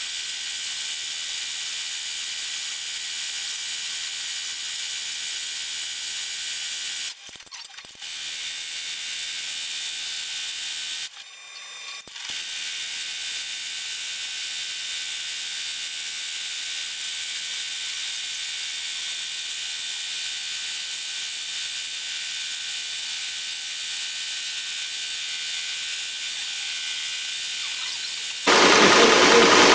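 Multi-needle embroidery machine stitching, a steady fast mechanical rattle. It drops out briefly twice, about a third of the way in. A louder sound cuts in abruptly near the end.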